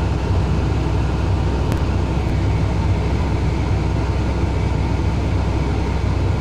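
Komatsu hydraulic excavator's diesel engine running steadily as a low, even drone, heard from the cab while the machine holds a loaded bucket of overburden.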